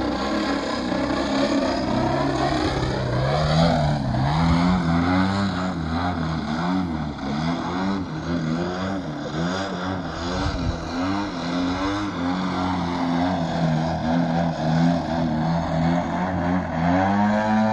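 Radio-controlled aerobatic model airplane in flight, its motor and propeller note dropping over the first few seconds, climbing sharply, then rising and falling again and again with the throttle through the manoeuvres.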